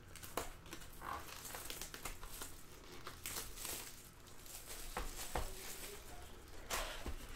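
Plastic wrapping crinkling and tearing as a sealed box of trading cards is unwrapped, with a few sharper handling clicks.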